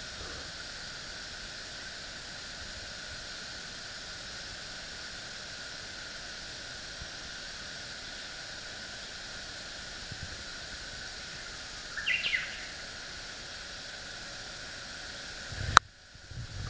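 Steady outdoor ambience with a constant high insect drone, a brief bird chirp about twelve seconds in, and a sharp click near the end.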